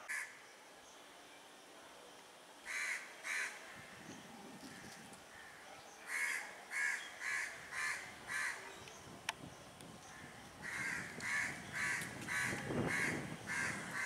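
A crow cawing in short, evenly spaced calls: two at about three seconds in, a run of five around the middle, and another run near the end. A single sharp click comes just after the middle.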